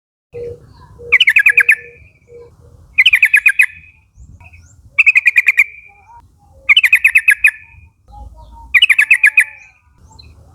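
Sooty-headed bulbul (trucukan) calling: five short bursts of rapid repeated chattering notes, one about every two seconds.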